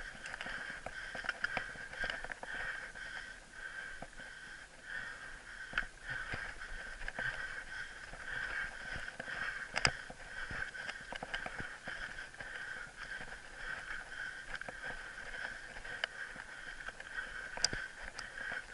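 Mountain bike riding over a rough dirt singletrack, heard from a camera mounted on the bike or rider: a steady hiss with frequent small clicks and rattles over the bumps, a sharper knock about ten seconds in and another near the end.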